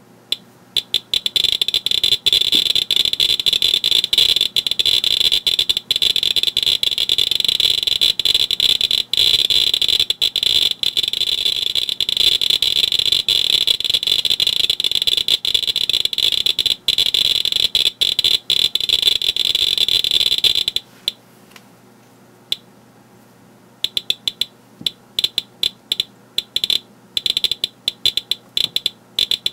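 Geiger counter with a pancake probe clicking in a rapid, dense crackle, set off by a Yashica Auto Yashinon-DS 50mm f/1.7 lens that probably contains thorium glass. About 21 s in the crackle stops, and after a short pause sparse separate clicks resume. This is the much lower count rate from the front of the lens.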